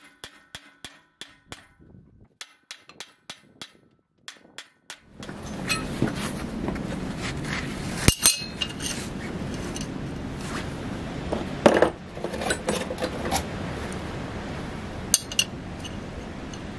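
A run of short, sharp clicks, about three or four a second, for roughly four seconds. Then a steady background rush with scattered metallic clinks and knocks as a flat steel bar and nuts are handled against a steel bearing bracket.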